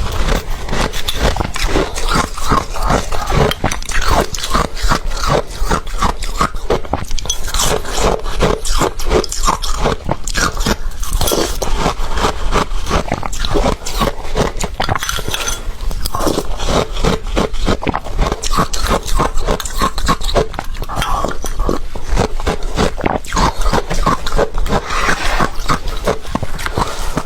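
Ice being bitten and chewed close to the microphone: a dense, unbroken run of crisp crunches, several a second.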